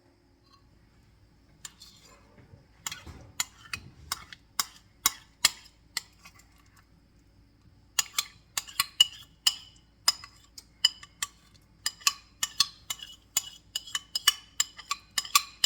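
A spoon clinking and scraping against a dish, scraping out thick cream cheese sauce: a handful of spaced taps, a pause of about two seconds, then a quicker run of clinks, two to three a second.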